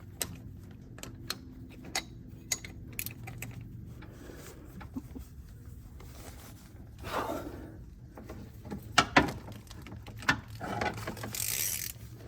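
Scattered light metallic clicks and clatter of a wrench working on a seized fitting that won't budge, with two sharper knocks about nine seconds in and a short hiss near the end.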